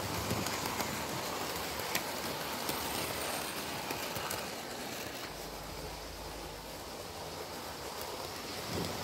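OO gauge model train, a Heljan LMS Beyer Garratt hauling Pullman coaches, rolling past on the track: a steady rumble of wheels and motor with a few light clicks. It is loudest as the train passes close, easing off in the middle and growing again near the end.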